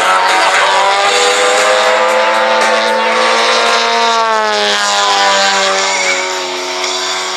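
Radio-controlled aerobatic model airplane's engine running hard in flight. Its pitch climbs slowly, then drops about four and a half seconds in as the plane passes and turns away.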